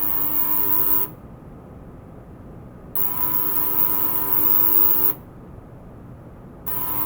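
Ultrasonic probe switched on and off in cycles: a hum with a high hiss for about two seconds, a gap of about two seconds, then again, switching off about a second in, back on about three seconds in, off near five seconds and on again near the end. A lower, steady noise from the small pump's running water continues through the gaps.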